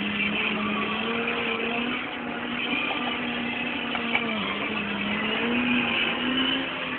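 Deutz-Fahr Agrotron K100 tractor's diesel engine running steadily under the load of a cultivator, heard from inside the cab. Its pitch sags briefly about four seconds in and lifts a little near the end.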